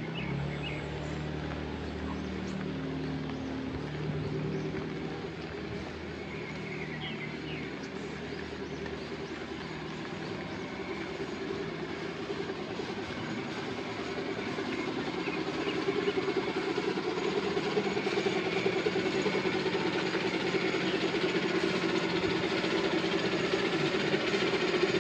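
An engine running, getting louder from about halfway in.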